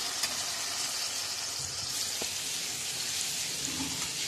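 Oil sizzling steadily in a kadai under onions and pressure-cooked mutton pieces, with two faint clicks.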